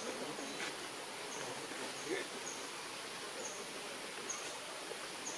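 Outdoor forest ambience: a steady hiss with a short, high chirp from a small creature repeating about once or twice a second, and faint low calls underneath.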